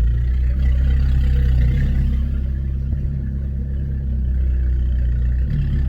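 Abarth 595's 1.4 turbocharged four-cylinder, breathing through a Monza exhaust with a Toyosports sports cat, running at low revs as the car pulls away: a steady low drone that swells slightly and eases.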